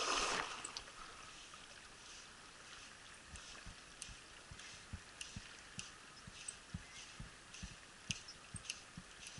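Faint, steady rush of a mountain stream, with irregular small clicks and knocks from about three seconds in.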